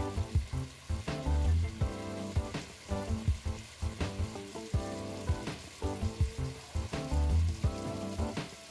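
Chicken pieces frying and sizzling in a pan, under background music with a steady beat and sustained notes.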